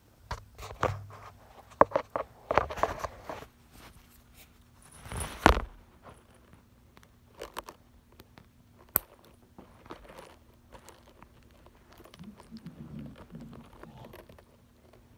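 Crinkling and rustling of torn toy packaging and a crinkle toy as a cat paws and noses at them on carpet. The sounds come in scattered bursts, busiest in the first six seconds with the loudest about five and a half seconds in, then thin out to a few clicks.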